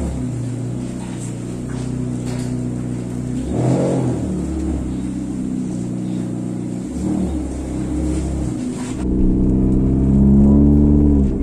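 Straight-piped exhaust of a small hatchback running with a couple of short revs. After a cut, heard from inside the cabin, the engine climbs in pitch as the car accelerates, then drops back near the end.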